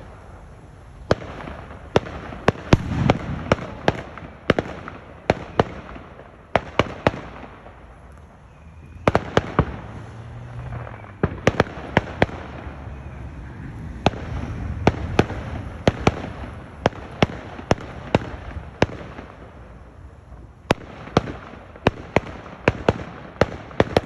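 Fireworks going off: a long run of sharp bangs and cracks, several a second in clusters with short lulls between, over a steady crackle and low rumble from the bursting shells.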